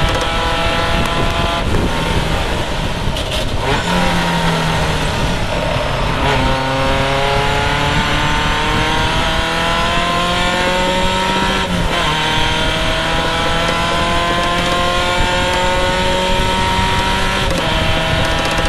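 Vintage Triumph race car's engine heard from the open cockpit, over steady wind and road rush. The revs fall for the first few seconds, then climb hard from about six seconds in, with an upshift at about twelve seconds and another at about seventeen.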